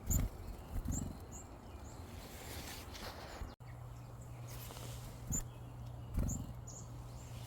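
Small wild birds giving short, high chip notes, a handful scattered across the clip, over a few low thuds on the microphone; the thuds are the loudest sounds.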